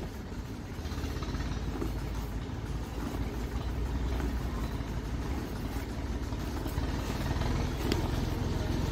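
Steady low rumble with the rustle of woven polypropylene sacks as they are lifted and turned over.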